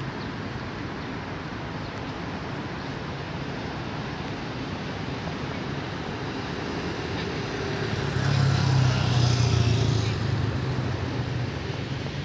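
Steady city street traffic noise. About eight seconds in, a heavy vehicle's low engine note swells for about two seconds and then eases off.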